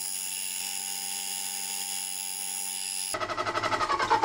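Milling machine spindle running a 3.5 mm twist drill through a metal block to make a pilot hole: a steady machine whine. About three seconds in it turns rougher and pulsing as the drill comes out of the hole.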